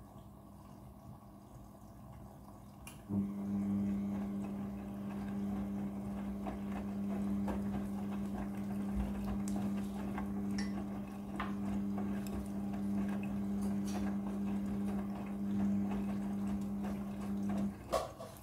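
Midea front-loading washing machine running its prewash: a steady motor hum starts suddenly about three seconds in and cuts off shortly before the end, over water sloshing and small knocks in the drum.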